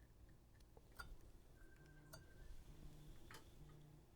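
Near silence: quiet room tone with three faint, sharp clicks spread about a second apart.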